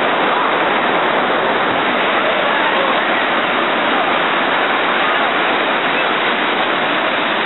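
Ocean surf breaking and washing up the beach: a steady, loud rushing hiss.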